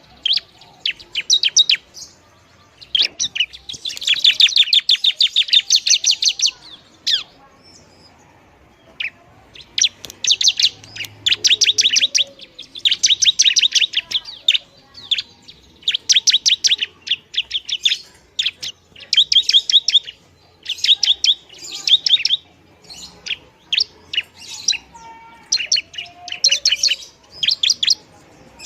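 Bar-winged prinia (ciblek) singing: repeated bursts of rapid, high chattering notes, each lasting a second or two with short gaps between. The longest burst comes about four seconds in.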